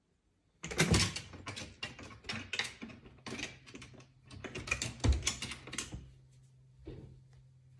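A cat climbing a wooden rung ladder, its claws and paws clicking and scrabbling on the wood in a rapid run for about five seconds, with one more click near the end.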